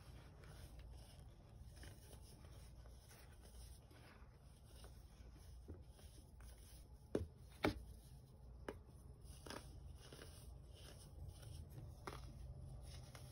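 Hands squeezing and crumbling handfuls of baking soda powder: faint soft crunching and rustling, broken by a few sharper crunches, the two loudest about half a second apart just past the middle.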